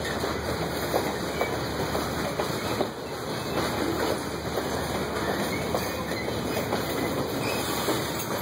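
Freight train boxcars rolling past: a steady rumble and rattle of steel wheels on the rails, with scattered clicks as the wheels pass over the track.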